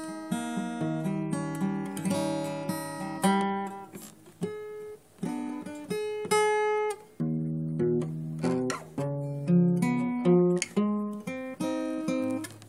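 Instrumental acoustic guitar music: plucked notes and strummed chords that ring and die away.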